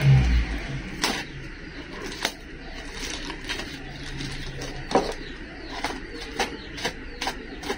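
Paper and tape wrapping being pulled open by hand, crinkling with irregular sharp crackles, after a thump of handling at the start.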